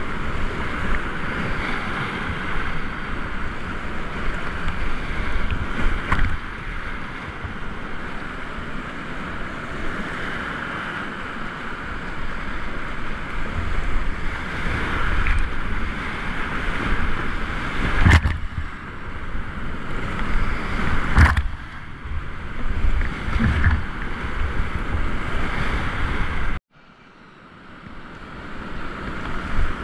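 Class IV whitewater rapids rushing loudly around a kayak, heard from the boat with water splashing on the camera's microphone and a few sharp knocks. The sound drops out suddenly near the end and then fades back in.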